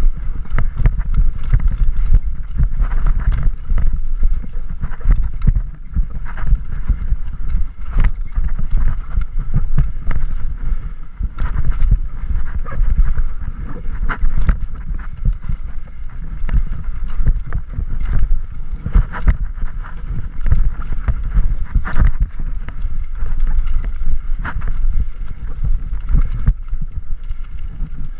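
Mountain bike riding fast down a rough dirt trail: wind buffeting the camera microphone as a heavy low rumble, with a steady stream of rattles and knocks from the bike over roots and rocks.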